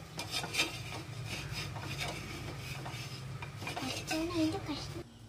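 A flat metal spatula scrapes and taps against an earthen clay pan (manchatti) as it works under a roasting flatbread. The scrapes come quick and irregular over a steady low hum.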